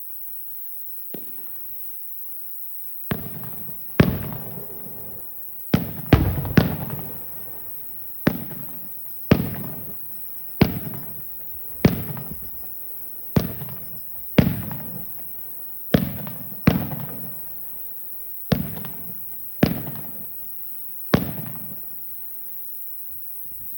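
Aerial fireworks shells bursting in the distance, one sharp boom every second or so, each trailing off in a rolling rumble. The booms start about three seconds in, after a near-quiet opening with one small pop.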